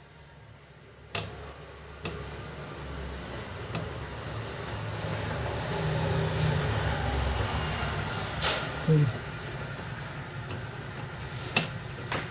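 Plastic and metal printer parts being handled: several sharp clicks and knocks, with a low mechanical rumble that swells in the middle and fades again, as the fuser unit and its drive gear are worked by hand.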